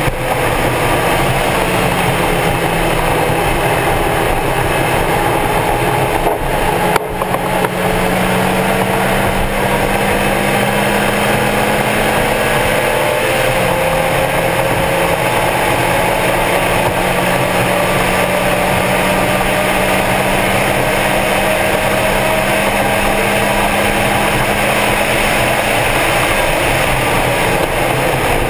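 Stock Mazda Miata's four-cylinder engine running steadily under load at speed on track, with a brief dip in level about seven seconds in.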